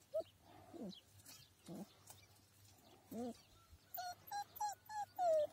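Puppy whimpering: a few scattered short whines, then a quick run of about six higher-pitched whimpers in the last second and a half, the last one the loudest.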